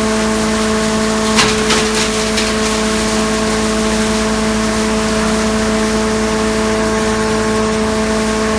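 Wood shavings making machine running with a loud, steady hum. A few sharp knocks come between about one and a half and two and a half seconds in.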